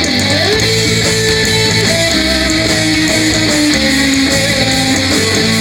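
Live rock band's electric guitar playing held, ringing notes with a slide just after the start, over a steady low bass note.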